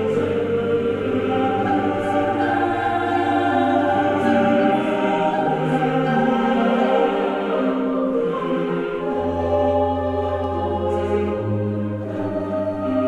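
Slow background music of sustained choir-like voices over long held bass notes, the chords shifting every few seconds with no beat.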